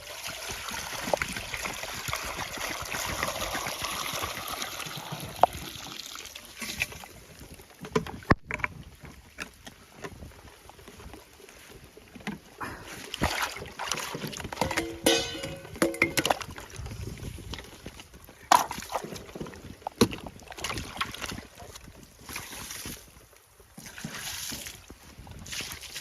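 Water pouring out and splashing for the first several seconds, then scattered knocks and clatter of cooking gear being rinsed and handled, with water sloshing.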